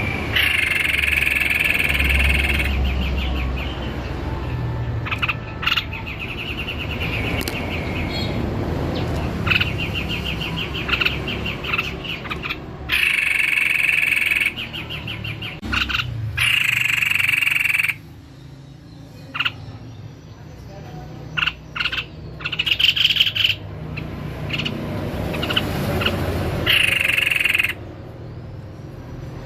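White-bibbed babbler (tepus leher putih) singing vigorously, giving loud bursts of fast rattling, chattering notes one to three seconds long, again and again with short pauses between.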